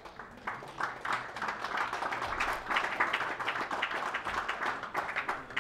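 Audience applauding: many hands clapping unevenly, building up over the first second or so and staying dense.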